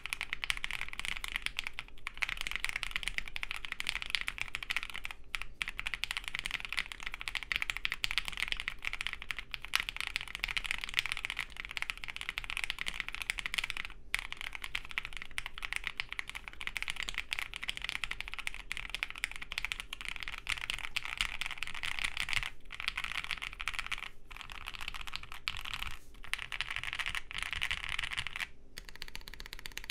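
Fast, continuous typing on a plateless studio kestra NUE custom mechanical keyboard with lubed, filmed FFFF switches on 57g springs and CRP keycaps: a dense stream of keystrokes with a few brief pauses, thinning out near the end.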